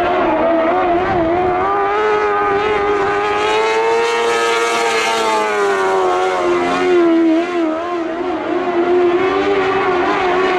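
Lightning sprint car engine running at high revs around a dirt oval, its pitch wavering up and down with the throttle through the turns. It is highest and brightest about halfway through, then drops back with a brief lull in loudness near the three-quarter mark.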